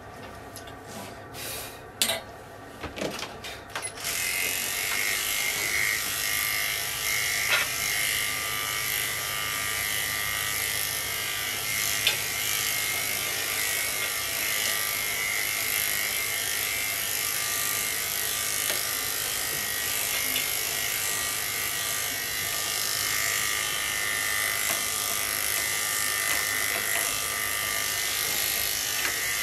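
Electric dog grooming clippers switch on about four seconds in, after a few clicks and knocks, and run steadily with a constant high buzz as they trim a toy poodle puppy's coat.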